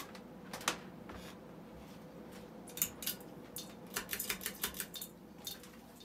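Sears Roebuck ceiling fan (Emerson 1895 Series) running with a faint, steady motor hum, overlaid by irregular light clicks and ticks that bunch together about four seconds in.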